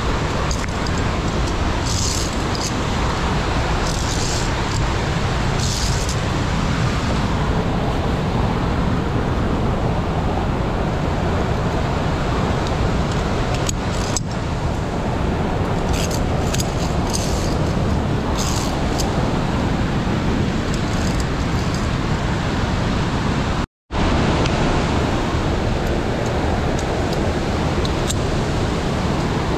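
Steady, loud rushing of a gorge's mountain stream or waterfall, with no pause except one brief dropout about three-quarters of the way through.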